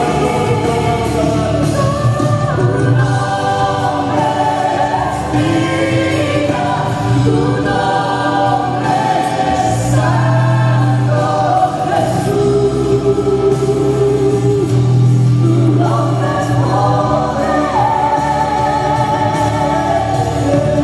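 Christian worship song performed live: several voices singing together in harmony on long held notes over a steady low accompaniment.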